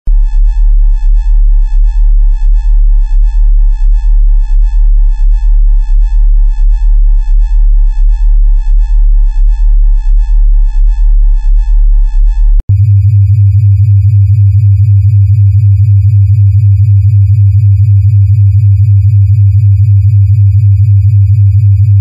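Synthesized sci-fi flying-saucer hum: a deep electronic drone that pulses about three times a second, switching abruptly about thirteen seconds in to a steady, slightly higher hum with faint thin high tones above it.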